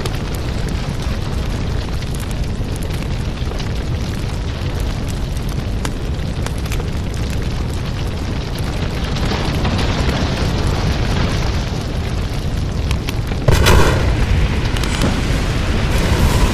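Explosion sound effects: a continuous deep rumble of blasts and fire, with a sudden louder boom about thirteen and a half seconds in.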